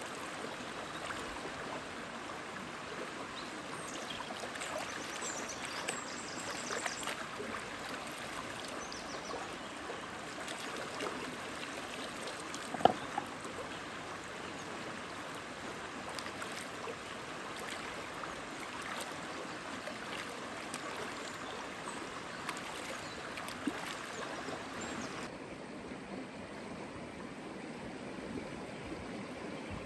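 Shallow stream running steadily over stones, with splashes and drips as a bunch of fresh herbs is dunked and shaken in the water. One sharp knock about 13 seconds in.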